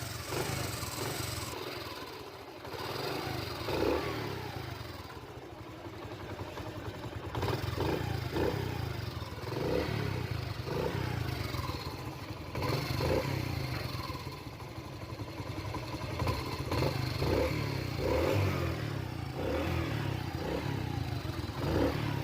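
Motorcycle engine running through its repaired exhaust silencer, the throttle blipped up and down again and again over a steady idle. The exhaust note is sound, called perfect, the leak from the torn silencer now cured.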